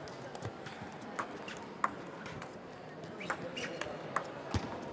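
Table tennis ball clicking off rackets and the table in a rally: a run of sharp, irregular clicks over the murmur of a large hall.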